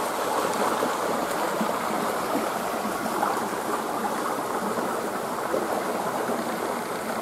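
Shallow, clear stream flowing over stones: a steady water noise that stays even throughout.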